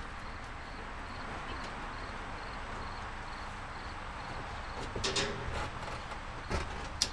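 Steady background hiss with a faint high chirp repeating about twice a second, and a few short knocks and clicks about five seconds in and again near the end.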